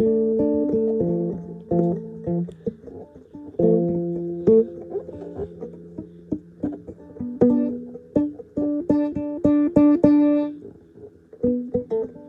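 Guitar being played: plucked single notes and chords left to ring, with a fast run of quickly repeated picked notes about nine seconds in.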